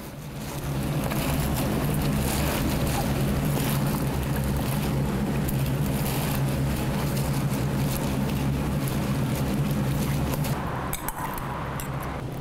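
Wet rustling and squelching of hands tossing sliced chillies, chilli flakes and sesame seeds in a plastic tray, over a steady low mechanical hum. The rustling stops about eleven seconds in, leaving the hum fainter.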